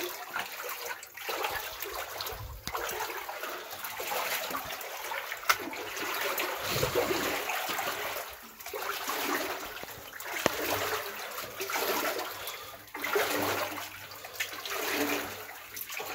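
People wading through shallow water on a tunnel floor, the water sloshing and splashing with each stride in uneven surges.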